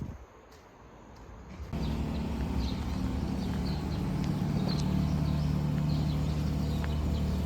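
A steady low mechanical hum, like a running vehicle engine, starts suddenly about two seconds in after a quieter stretch with a few light taps, with faint high chirps scattered over it.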